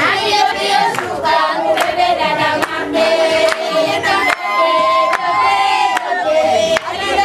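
A group of women singing together, with rhythmic hand clapping about twice a second.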